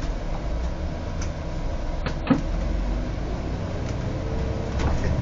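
Bus engine running with a steady low rumble as the bus moves off, heard from inside the driver's cab, with a few light clicks and a sharper clunk about two seconds in.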